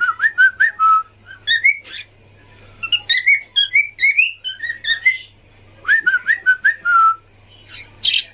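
Small pet parrots calling in clear whistled chirps, short rising notes in quick runs of four to six with pauses between, and a short harsh squawk near the end. A faint steady low hum sits underneath.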